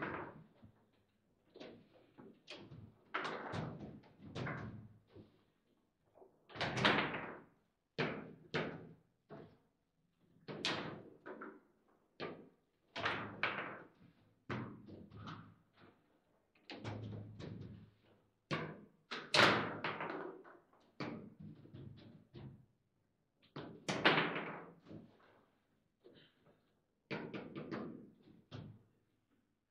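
Table football in play: the ball struck by the rod players and banging against the table, a rapid, irregular run of hard knocks and clacks.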